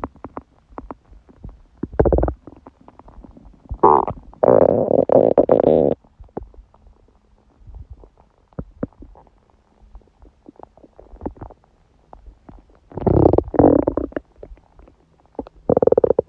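A woman's stomach growling and gurgling during menstruation, in several bouts. The longest runs from about four to six seconds in, with small pops and clicks between the bouts.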